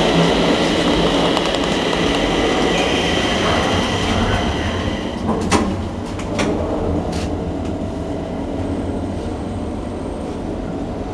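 Thyssen inclined elevator car running along its inclined track: a steady rumble with a high whine, then three sharp clicks about halfway through, after which the running sound eases a little.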